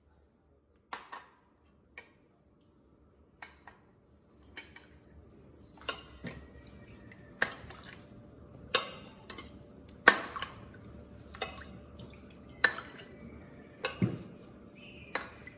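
A stainless steel ladle clinking against a ceramic bowl and mugs as lemonade is ladled from the bowl into the mugs: about a dozen sharp clinks, most of them about a second and a half apart, with faint pouring of liquid between them.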